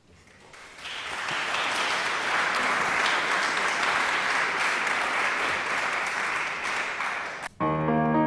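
Audience applauding, swelling over the first second and then holding steady, until it is cut off suddenly near the end. Piano music begins right after the cut.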